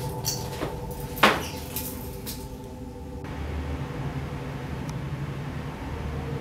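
A backpack being handled and set down: a few soft clacks and one sharp knock about a second in, over a steady low room hum.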